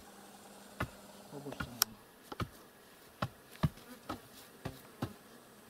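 Faint buzzing of flying insects, with a dozen or so short, sharp clicks at irregular intervals.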